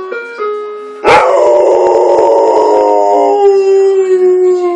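A melodic electronic doorbell chime plays a few stepped notes. About a second in, a dog breaks into one long howl that slowly falls in pitch and is much louder than the chime.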